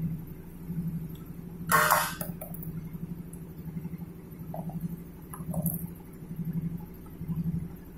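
Stainless-steel welding electrodes clattering as they are set down, one sharp metallic rattle about two seconds in, followed by a couple of light ticks. Under it a steady low machine hum swells and fades about once a second.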